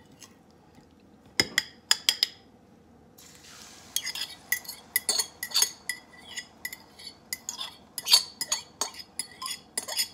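A metal fork clinks and scrapes against a ceramic bowl as egg and oat batter is stirred, then poured into a non-stick frying pan. There are a few clinks early on, a soft pour about three seconds in, and then quick repeated taps and scrapes of the fork on the bowl as it is emptied.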